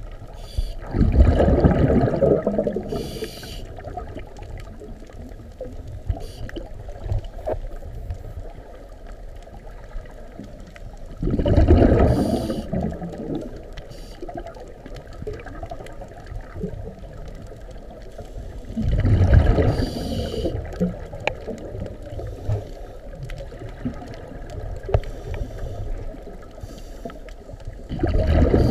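Scuba regulator breathing underwater: four bubbling exhalation bursts about eight seconds apart, each lasting about two seconds, with a fainter gurgling hiss between breaths.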